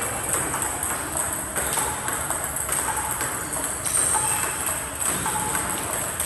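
Table tennis balls bouncing on the table and struck by paddles in a multi-ball drill, a short ping roughly once a second, with music in the background.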